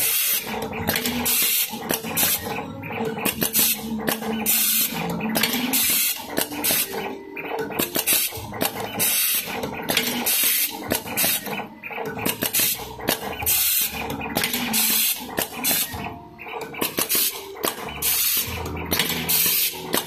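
Automatic USB cable cutting and stripping machine running, cutting and stripping two wires at a time: short hissing bursts repeat unevenly, about twice a second, over a steady motor whine whose lower tones shift in pitch.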